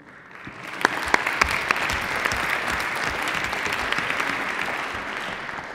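Audience applauding: many hands clapping, building up about half a second in, holding steady, and fading out near the end.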